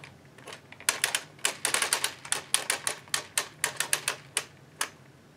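Classic Bond 8 mm knitting machine's carriage pushed slowly across the needles by hand on a first row, the needles clicking through it in a quick, irregular run of sharp clicks. The clicks start about a second in and stop shortly before the end.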